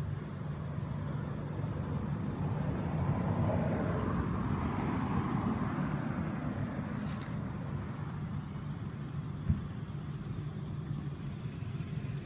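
Motor vehicle engine running in the background, a steady low rumble that swells louder around the middle as the vehicle passes and then fades again, with a single sharp click a few seconds before the end.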